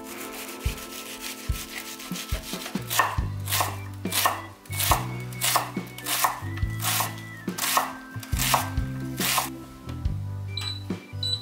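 Chef's knife cutting half an onion on a wooden cutting board. It starts with a few seconds of soft slicing strokes, then from about three seconds in comes a run of sharp chops, about two or three a second, as the onion is finely diced. Near the end there are a few short electronic beeps from an induction cooktop's touch controls.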